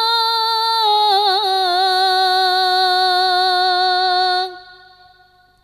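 Solo female voice singing an unaccompanied Islamic sya'ir through a microphone: one long held note that drops in pitch with a wavering melismatic ornament about a second in, then trails off with echo about four and a half seconds in.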